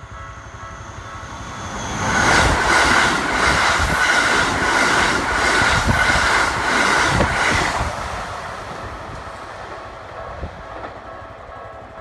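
Keikyu 1000-series eight-car stainless-steel electric train passing close by at a level crossing, loud for about six seconds with a rhythmic clacking of wheels over rail joints, then fading away. The level-crossing warning bell rings steadily under it.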